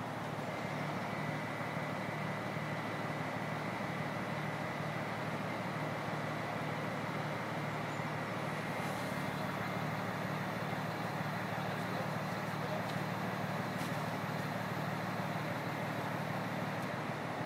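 A crane's diesel engine running steadily as it lifts a heavy load on its hook.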